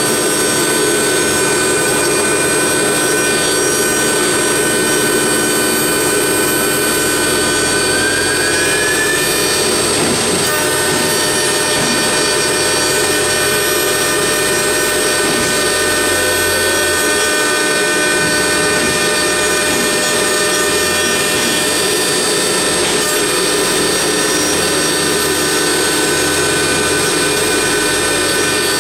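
CNC router spindle whining steadily while its cutter carves a wooden column turning on the rotary axis, with continuous cutting noise. The level holds even throughout.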